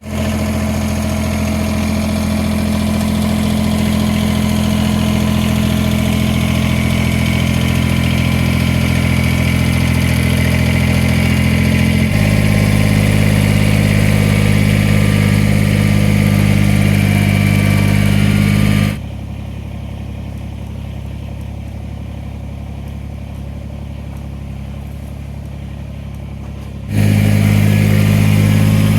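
Kubota BX23S compact tractor's three-cylinder diesel engine running steadily while it drags a log out on a rope. The engine note shifts abruptly about twelve seconds in, turns quieter a few seconds later, and comes back loud near the end.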